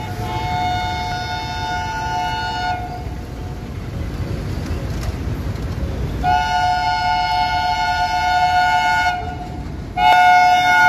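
Two-tone horn of an Indian Railways diesel locomotive sounding three long blasts as the train approaches the crossing, the third the loudest and ending abruptly, over a low rumble.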